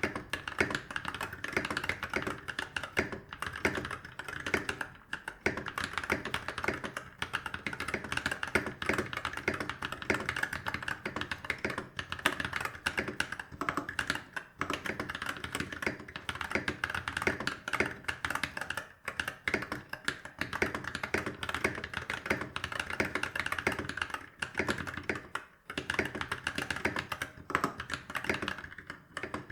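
Continuous fast typing on a NovelKeys NK65 Entry Edition mechanical keyboard with stock Glorious Holy Panda tactile switches and PBT keycaps, a dense run of keystroke clacks broken by a few brief pauses.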